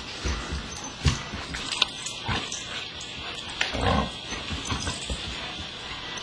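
A Shiba Inu and an Akita play-fighting: mouthing, scuffling and short vocal noises, with scattered knocks. The loudest noise comes about four seconds in.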